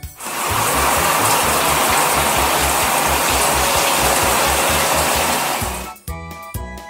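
Cartoon sound effect of water spraying steadily from an overhead shower nozzle, rinsing off soap foam, over a children's music backing beat. The spray cuts off suddenly about six seconds in and the jingly tune carries on.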